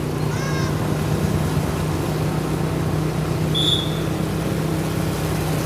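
Steady road-vehicle engine hum and road noise on the move, with a brief high beep about three and a half seconds in.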